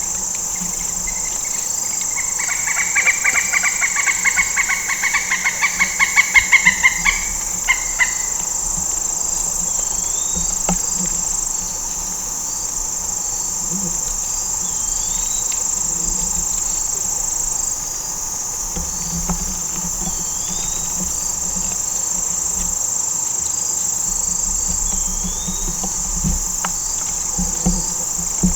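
Steady, high-pitched chorus of crickets and other night insects. A few seconds in, an animal gives a rapid series of pulsed, clucking calls that grows louder for about five seconds, then stops. Faint short chirps recur every few seconds.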